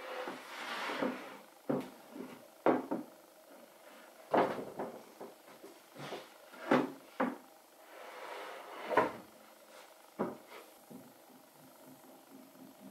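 Chestnut boards being shifted and set down on a workbench: a string of irregular wooden knocks and clunks, with a few sliding scrapes of wood across the table.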